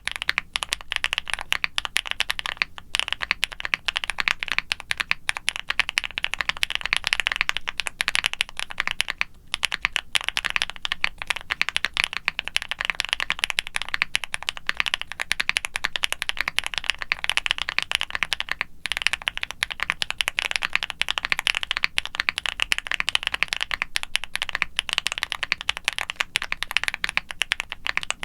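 Continuous fast typing on a QwertyKeys QK65 mechanical keyboard with factory-lubed Gateron Smoothie linear switches and GMK doubleshot ABS keycaps, a dense run of keystroke clacks. The board has a polycarbonate plate and full foam and silicone dampening. Typing pauses briefly three times.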